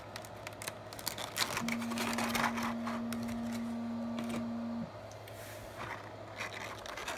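Toy packaging being handled: plastic and cardboard pieces rustling and clicking irregularly. A steady low hum starts about one and a half seconds in and stops abruptly about three seconds later.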